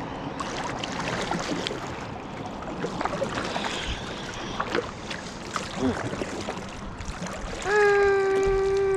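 Kayak paddling: paddle blades dipping and splashing in river water, with drips and small sharp knocks. About three-quarters of the way through, a loud steady held tone starts and carries on to the end.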